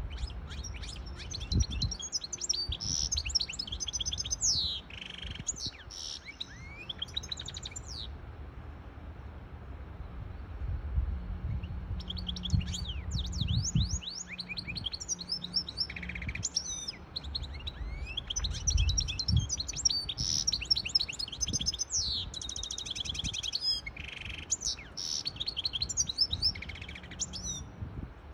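Goldfinch hybrid (mule) singing a fast, twittering song of high trills and chirps, in two long bouts with a pause of a few seconds about a third of the way in. A low background rumble runs underneath.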